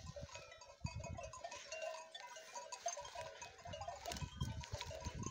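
Flock of sheep and goats, heard faintly: scattered bleats, with the small bells on the animals clinking.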